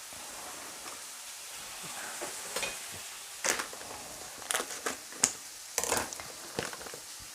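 Onion sautéing in a frying pan, a steady sizzle. Over it come several sharp clicks and scrapes of small objects being handled, starting about three and a half seconds in.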